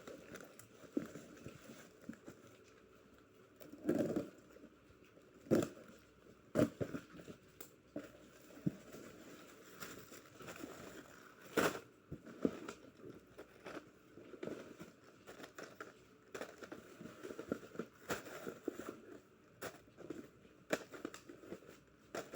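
Hands handling and opening plastic packaging of small plastic earpicks: irregular crinkling and rustling with scattered sharp clicks, the loudest rustles about four, five and a half, six and a half and eleven and a half seconds in.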